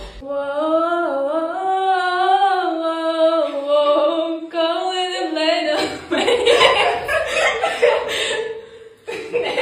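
A single high voice, a woman's or girl's, singing a wordless melody with no accompaniment for about five and a half seconds, followed by about three seconds of louder, mixed, noisy sound.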